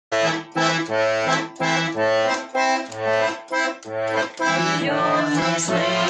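Russian garmon (button accordion) playing the instrumental introduction to a waltz: melody chords over alternating bass notes, in short separated phrases at first, then playing on without breaks from about four and a half seconds in.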